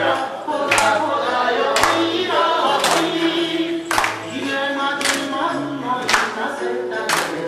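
A group singing along with music, with hand claps on the beat about once a second.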